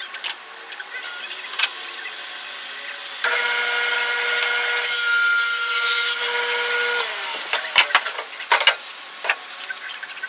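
Table saw running, then cutting loudly through a thick wooden plank for about four seconds from about three seconds in. The cutting stops suddenly and a few sharp knocks follow.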